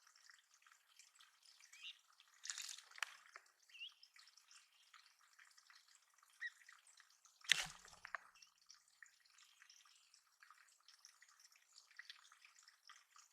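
Water dripping and trickling into a small bird pond, with louder splashes about two and a half seconds and seven and a half seconds in, the second the loudest.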